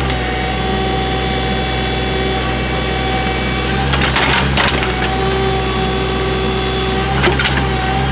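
Excavator's diesel engine running steadily, its pitch sagging briefly under load twice, about four seconds in and near the end, each time with a short burst of noise.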